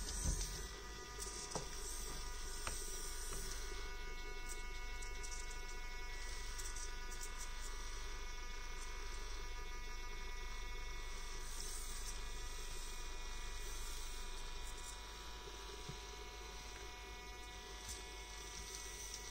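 Micro RC crawler's N20 geared motor, a custom 105 rpm unit, whining steadily as the truck crawls over rocks, with a few light clicks in the first three seconds. The buzz eases off a little about three-quarters of the way through.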